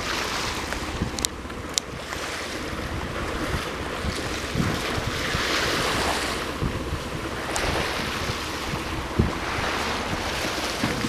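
Surf washing up the beach in slow swells of hiss every few seconds, with wind buffeting the microphone in a low rumble; a few faint clicks.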